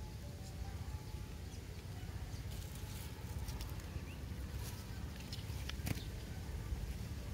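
Outdoor ambience: a steady low rumble with scattered faint clicks and rustles, the sharpest about six seconds in, and a few faint chirps.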